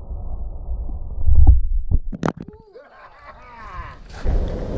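A thrown double-bit axe strikes the wood close to the GoPro with a heavy thud about a second and a half in, then a few sharp knocks as the camera is jolted. A low wind rumble on the microphone comes before the hit.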